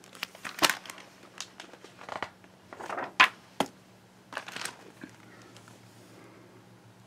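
Pages of a hardcover picture book being turned and handled: paper rustling and crinkling, with a few sharp flaps and knocks, the loudest a little under a second in and a little over three seconds in, dying away after about five seconds.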